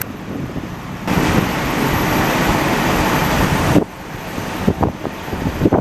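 A vehicle driving close by: a steady rush of engine and tyre noise that starts about a second in and cuts off sharply near four seconds, followed by a few scattered knocks.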